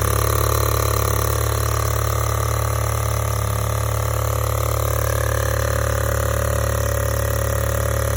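Volkswagen Golf GTI MK7's 2.0-litre turbocharged four-cylinder engine idling steadily with a loud, rapid, even ticking and clacking. The clacking came from loose mounting bolts on the high-pressure fuel pump.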